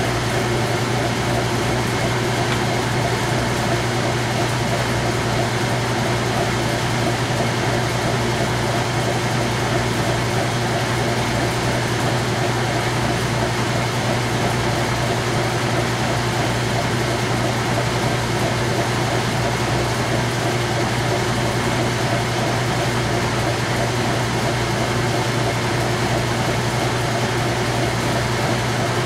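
Whirlpool-built direct drive top-load washer in its final rinse spin: the tub spins at speed with a steady low motor hum and whir.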